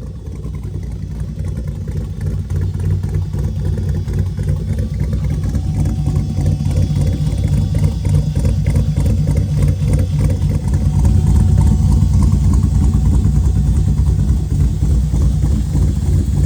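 LS V8 engine in a 1954 Chevy Bel Air running, its low sound growing louder over the first several seconds, then holding steady.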